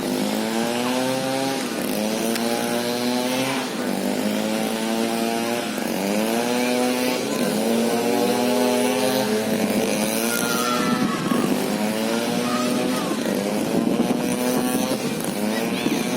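Excavator working, its engine note repeatedly sagging and climbing back up in pitch every second or two as the machine moves.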